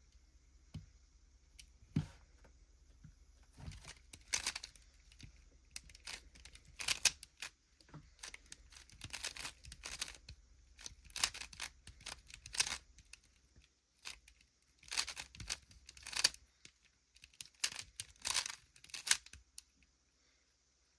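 A plastic Rubik's cube being turned rapidly, its layers rotating with a rasping clatter in quick runs of moves separated by short pauses, starting a few seconds in and stopping near the end.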